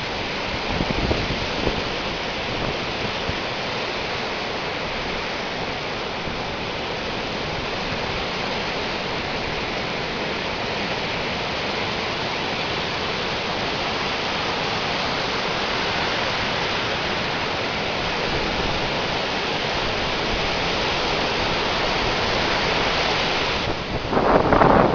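Sea waves washing in steadily, with wind buffeting the microphone, and a louder rush right at the end.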